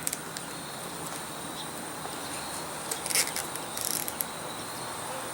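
Nylon zip ties being pulled tight, their teeth ratcheting through the locking heads in two short quick rasps about three and four seconds in.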